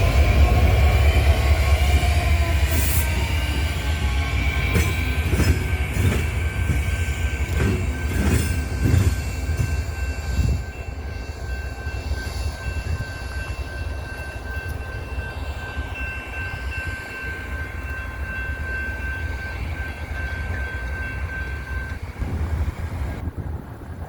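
A train rolling past: a heavy rumble with wheels clacking over rail joints, fading away after about ten seconds. A thin, steady wheel squeal goes on behind it and stops shortly before the end.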